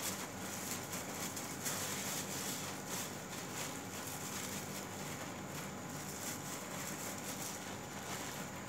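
Steady background hiss with a faint low hum and scattered light crackles.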